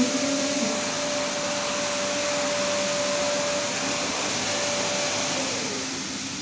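Rotary carpet-cleaning machine with a solution tank running, a steady whirring rush over a constant hum. Near the end the hum drops in pitch.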